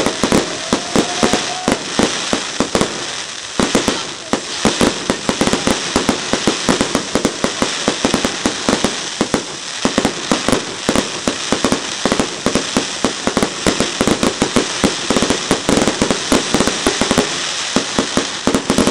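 Fireworks display: a rapid, unbroken barrage of sharp bangs, several a second, over continuous crackling.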